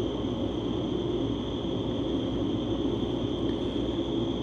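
Steady air-conditioning hum with a thin, constant high whine inside an enclosed observation-wheel capsule.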